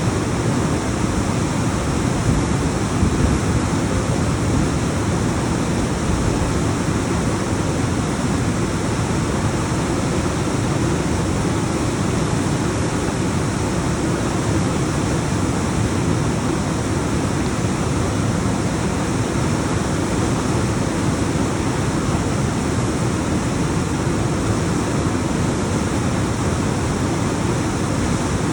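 Alpine waterfall: a continuous rush of water tumbling down rocks, steady and full, strongest in the low range.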